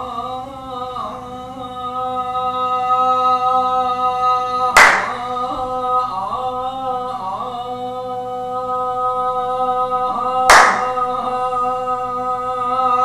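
A man singing unaccompanied in a long, wavering chant over a steady held tone, with two sharp hand claps about five seconds and ten and a half seconds in, each ringing out briefly.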